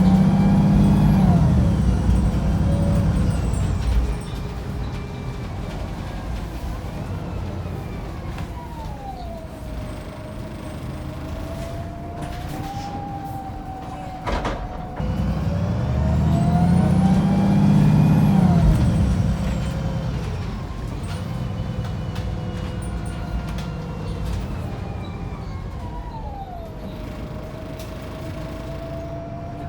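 Wright Pulsar 2 single-deck bus's diesel engine pulling hard twice, heard from inside the bus. With each pull a whine rises in pitch and then drops away as the gearbox changes up, before it settles into a steadier whine. A single sharp knock comes about fourteen seconds in.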